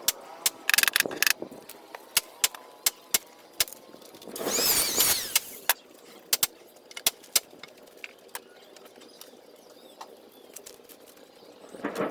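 A run of sharp taps and knocks, quick at first and then sparser, with a short noisy burst about four seconds in.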